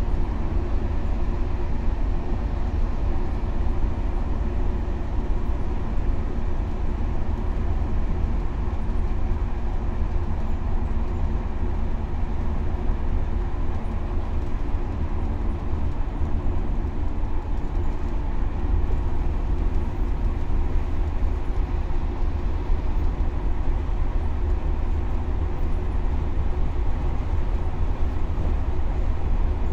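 Scania K320UA bus travelling steadily along the O-Bahn guided busway: a continuous loud, deep rumble of engine, tyres and concrete guide track, with a steady engine drone held throughout.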